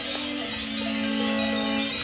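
Cowbells on a grazing herd clanking and ringing, over background music that holds long low notes.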